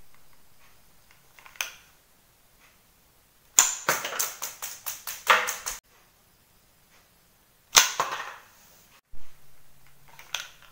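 Homemade rubber-powered PVC marble gun firing marbles at small targets on a tiled floor. There is a loud sharp crack about 3.5 s in, followed by a quick run of clicking clatter, and another sharp crack near 8 s, with lighter clicks and a thump in between.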